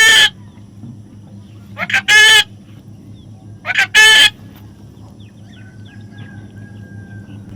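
A parrot squawking loudly three times, about two seconds apart, each call a quick short note and then a longer harsh one; a steady low hum runs underneath.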